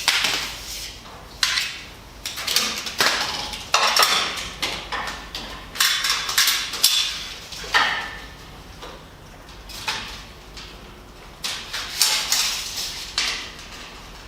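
Irregular metallic clanks and scrapes, a dozen or so sharp-edged bursts of a fraction of a second to about a second each, from metal hardware and tools being worked against steel overhead.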